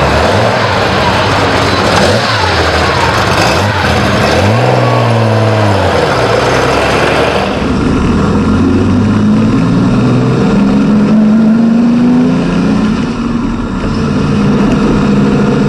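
Porsche 914/6 GT's flat-six racing engine revved in blips, its note rising and falling several times. After a cut about halfway through it is heard from inside the cabin, running more steadily at middle revs and slowly climbing, the engine not yet warm.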